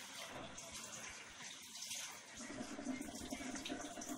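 Steady rush of running water. A low humming tone joins a little over halfway through.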